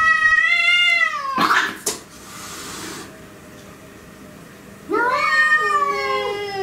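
Domestic cats yowling in a territorial standoff. A long wavering yowl ends in a short harsh burst, and about five seconds in a second long yowl slides down in pitch into a low moan.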